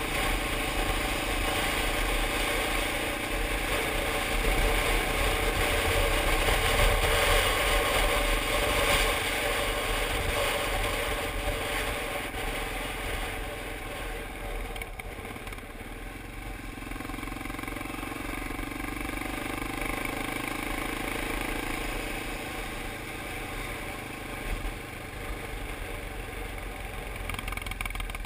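Yamaha Ténéré motorcycle engine running under way, with a steady rush of wind over the helmet-mounted microphone. It is louder for the first dozen seconds, then eases off to a lower, steadier run.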